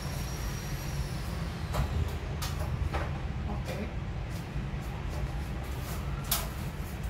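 Scattered light knocks and clicks of an aluminium stepladder being climbed and handled, over a steady low rumble. A faint high whine fades out about a second in.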